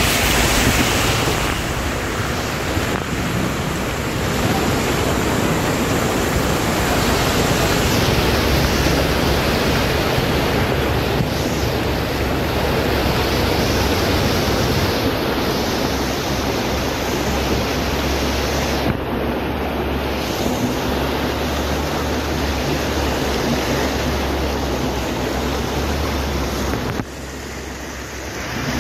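Steady rushing noise of floodwater, with a low wind rumble on the microphone; the level dips briefly near the end.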